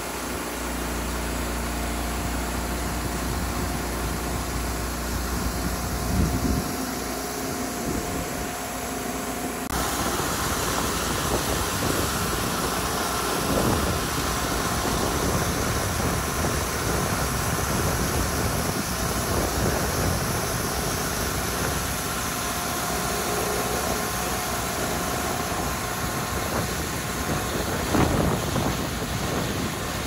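Wood-Mizer LT40 portable sawmill's engine running steadily at idle, with the blade not cutting. The sound changes abruptly about ten seconds in.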